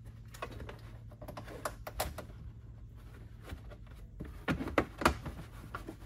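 Light, scattered clicks and taps of the trunk carpeting being pressed and tucked back into place along the trunk edge, with a few louder knocks near the end.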